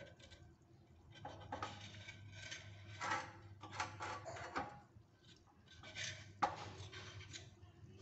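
Knife scraping and prying at the dried dough seal around the lid of an earthenware cooking pot, in short irregular scrapes, clay rubbing on clay.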